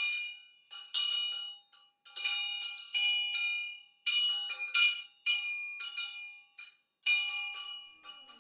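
Small metal bells rung over and over, about two strokes a second in an uneven rhythm, each stroke ringing high and bright before it fades.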